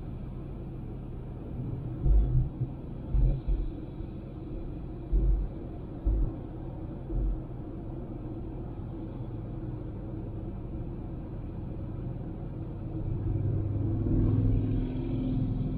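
Honda Civic driving at road speed: a steady low road rumble, broken by several short, loud low thumps in the first half. Near the end it swells into a louder low hum with a steady tone.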